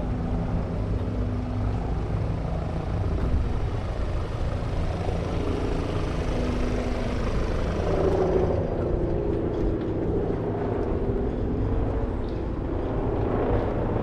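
City street traffic: motor vehicles running close by, a continuous low rumble with steady engine tones that change about halfway through.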